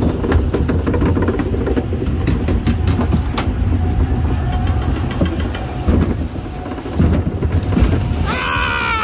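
Park train car rumbling and clattering along the track, with a steady low rumble and frequent short clicks. Near the end a long high tone starts and slowly falls in pitch.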